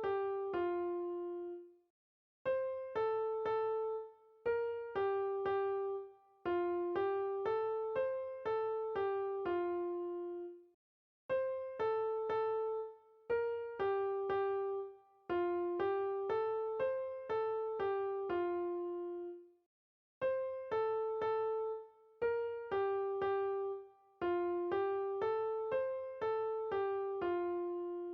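Background music: a simple, gentle keyboard melody of short plucked-sounding notes, looping roughly every nine seconds with a brief pause between each repeat.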